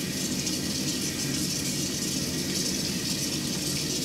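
Bathroom faucet running steadily into the sink.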